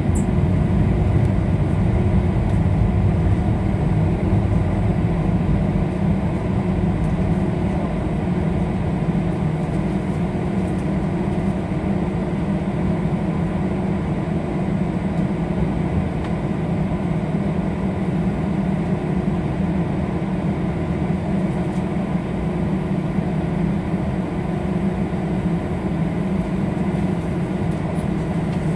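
Airliner cabin noise while taxiing: a steady low rumble of the jet engines at taxi power and the wheels rolling on the taxiway, with a faint steady whine above it.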